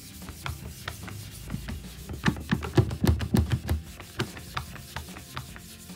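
Cloth rubbed briskly back and forth over a varnished wooden tabletop in a run of quick strokes with soft thumps, busiest in the middle. It is buffing a white water or alcohol stain out of the finish.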